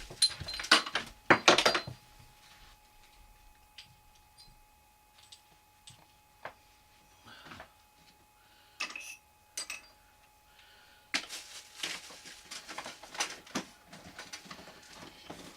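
Clatter and knocks of hard objects being handled and set down: a few loud knocks at the start, scattered light taps, then a stretch of busy rattling about eleven seconds in.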